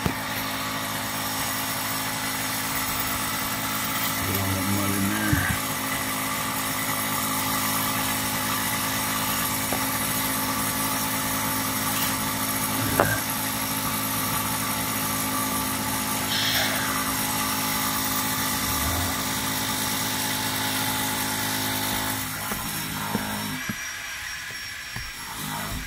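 A steady machine hum made of several held tones, running evenly and then dying away about 22 seconds in, with a few light knocks along the way.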